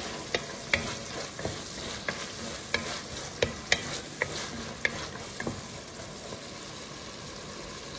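Diced carrots, onion and minced garlic sizzling in hot oil in an enameled Dutch oven while a wooden spatula stirs them, its strokes knocking and scraping against the pot at an irregular pace. The knocks stop a little past five seconds in, leaving the steady sizzle.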